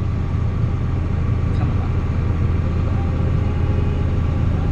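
John Deere 7800 tractor's six-cylinder diesel engine running steadily, a constant low drone.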